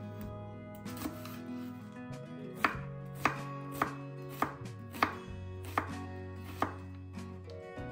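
Chef's knife dicing a red onion on a wooden cutting board: sharp knocks of the blade on the board, about one every two-thirds of a second, beginning a little over two seconds in.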